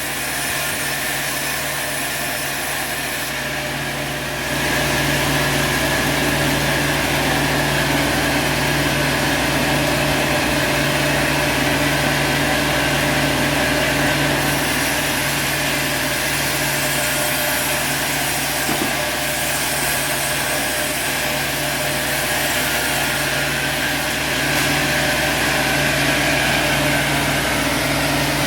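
Sawmill machinery running steadily with a constant engine hum, getting louder about four seconds in.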